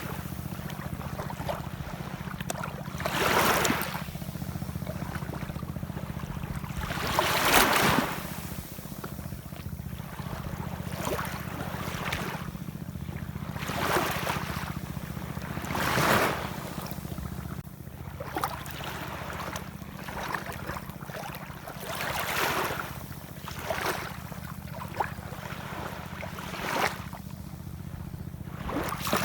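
Ocean waves washing in. Each wave comes as a loud surge of surf every few seconds, over a steady low rumble.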